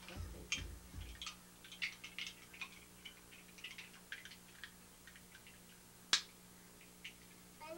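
Large plastic Lego bricks handled and knocked together, giving a string of small clicks and rattles with a few low thumps in the first second and one sharp snap about six seconds in.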